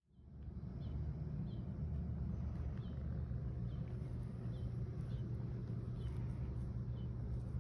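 Outdoor ambience that fades in at the start: a steady low rumble with a small bird chirping over it about once a second.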